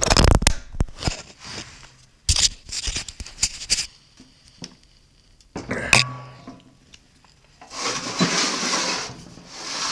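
Metal clinks and knocks from hand tools and parts being handled during small-engine reassembly: a cluster of clicks at the start, more a couple of seconds in, and a single knock midway. Near the end comes a rubbing scrape lasting over a second.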